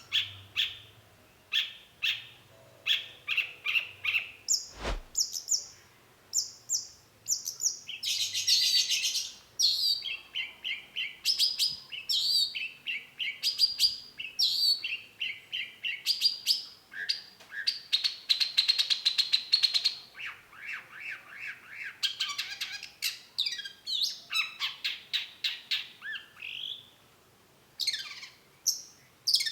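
Long-tailed shrike singing a fast, varied song of quick repeated chips, trills and longer buzzy chattering passages, with no pauses. There is a single sharp thump about five seconds in.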